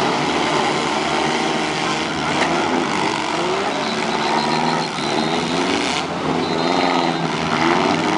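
Several compact cars' engines revving hard in a demolition derby, pitch rising and falling as they accelerate, with a sharp knock about two and a half seconds in.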